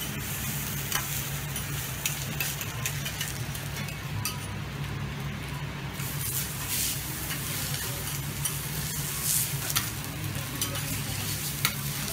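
Kobe beef steaks sizzling steadily on a hot teppanyaki steel griddle, with scattered sharp clicks of the chef's knife and fork against the steel. A steady low hum runs underneath.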